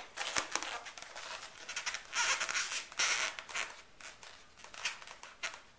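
A marker drawing on an inflated latex balloon: a run of short, squeaky, scratchy strokes, with a couple of longer strokes about two and three seconds in.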